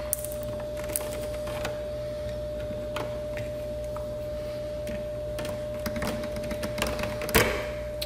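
Scattered light clicks and scrapes of hand tools working on thick electrical cable, over a steady hum, with one sharper knock about seven seconds in.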